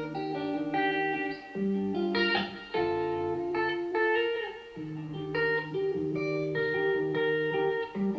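Guitar music played back over hi-fi loudspeakers: plucked guitar notes and chords, changing about every half second, with brief dips between phrases.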